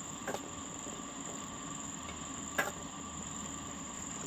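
Marie biscuits frying in melted ghee in a metal kadai, a steady low sizzle, with two light clicks of a slotted steel spoon against the pan, about a third of a second in and again about two and a half seconds in.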